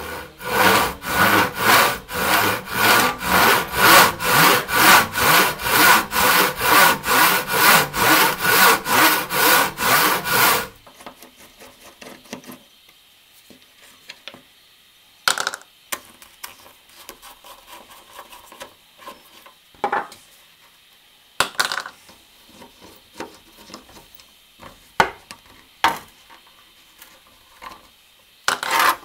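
Rusty, not-yet-sharpened hand saw cutting through a piece of timber in a test cut, about two strokes a second, then stopping suddenly. Afterwards come faint scraping and a few sharp clicks as a screwdriver works the slotted screws of the saw's wooden handle.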